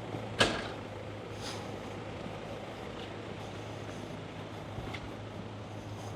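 Outdoor city ambience with a steady low hum, broken by a single sharp clack about half a second in and a few fainter ticks after it.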